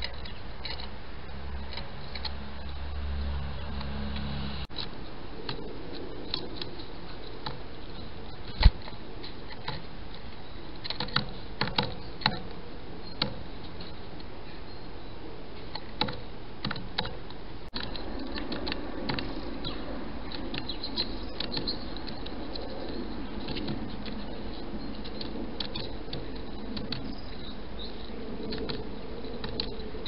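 Small bird, a great tit, pecking and tapping at a bird feeder: scattered sharp taps and clicks over a steady hiss.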